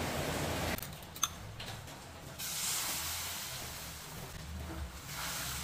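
Beaten egg cooking in a nonstick frying pan over a gas burner: a soft, steady sizzling hiss that starts about two seconds in. Before it, a single click.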